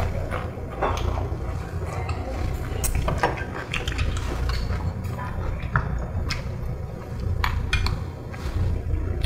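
Korean metal spoons and chopsticks clinking and tapping against a stone pot, small metal bowls and a plate during a meal, in many scattered short clicks. A steady low hum runs underneath.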